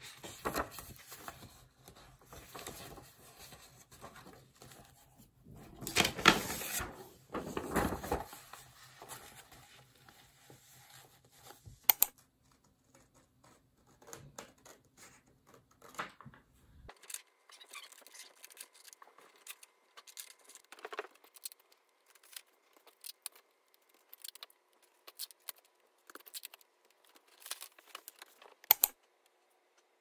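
Paper being handled: notebook pages turned and loose sheets rustled and slid, loudest for a couple of seconds about six seconds in. In the second half come scattered short snips of scissors cutting paper.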